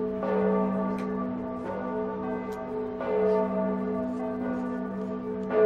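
Church bells ringing, several bells struck in turn so their tones overlap and hum on. A fresh, louder strike comes near the end.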